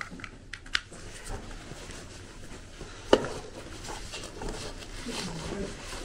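A few light clicks and knocks, with one sharp, louder knock about three seconds in.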